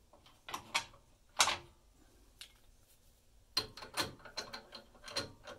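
Metal clicks and knocks from a lathe chuck as an acrylic pen blank is set in its jaws and the chuck is tightened. Scattered single knocks, the loudest about a second and a half in, then a quick run of clicks near the end.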